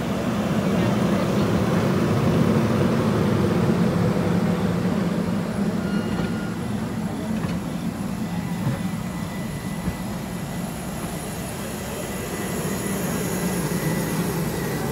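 Stainless-steel streamlined passenger cars rolling past at close range: a steady rumble of wheels on the rails, loudest in the first few seconds, easing slightly and building again near the end.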